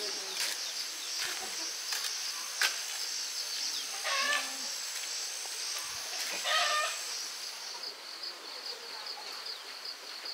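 Insects buzzing steadily at a high pitch, turning to a pulsing chirp near the end, with two short animal-like calls about four and six and a half seconds in.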